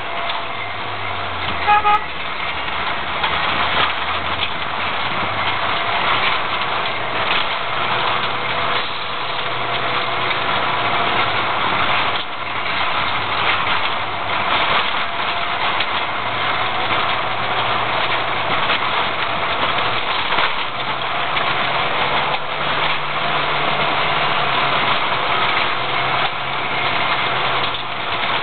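Car engine running and tyre noise from the rough dirt road, heard from inside the cabin while driving, the engine note stepping up and down with the throttle. A brief beep sounds about two seconds in.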